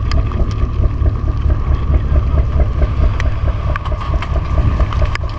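A boat engine running steadily, with a regular pulsing beat over a low rumble, and a few light clicks scattered through.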